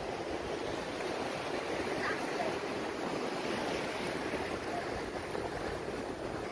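Steady rush of small breaking waves and foam washing through shallow water at the shoreline.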